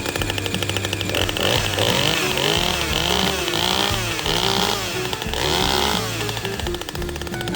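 Echo CS-620PW 60cc two-stroke chainsaw, just started after being re-choked, revved up and down about five times in quick succession from about a second in, then dropping back to a rattling idle near the end.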